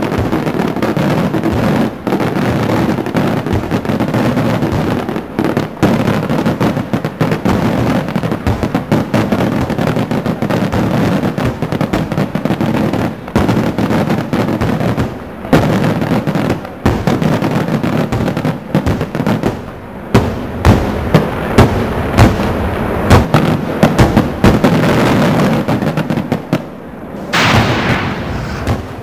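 Fireworks display: a dense, continuous barrage of crackling bursts and bangs, with a run of louder separate bangs a little past the middle. Near the end it gives way to a steady hiss.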